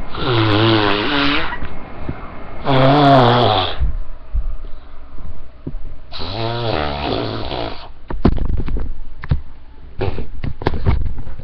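Mouth-made fart noises: three long buzzing raspberries blown through the lips, the first two close together and the third a few seconds later. Several short clicks and pops follow near the end.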